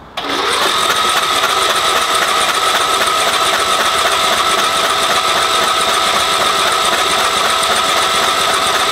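A riding mower's Briggs & Stratton Intek engine turned over by its electric starter with the spark plug removed: a steady, fast whirring crank with a high whine, starting abruptly and never catching. It is a test on an engine suspected of too much compression.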